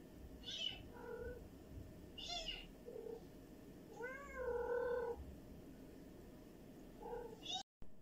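A kitten mewing several times in short, high calls. The longest mew comes about four seconds in and lasts about a second.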